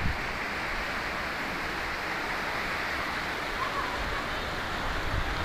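Steady rushing noise of water during heavy rain.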